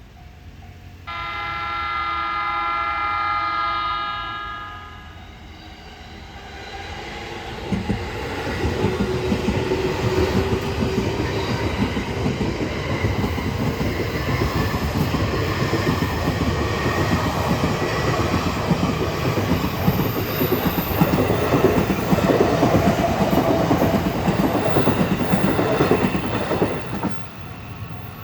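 JR E233 series 3000 electric commuter train sounding a steady horn blast of about three and a half seconds, then passing over the level crossing with a loud rumble and wheels clacking over the rail joints for about twenty seconds. The noise cuts off sharply near the end as the train clears.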